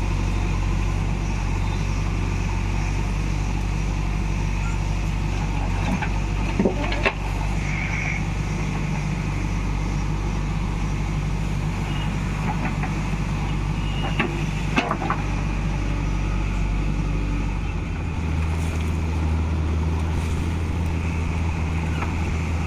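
JCB 3DX Eco backhoe loader's diesel engine running steadily under work. A few sharp knocks come in two clusters, and about three quarters of the way through the engine note shifts in pitch.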